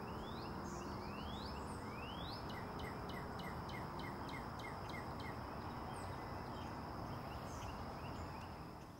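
Outdoor wetland ambience: a steady high-pitched insect trill with birds calling over it. A few rising, sweeping calls come in the first couple of seconds, then a quick run of short repeated notes, about three a second, for a few seconds.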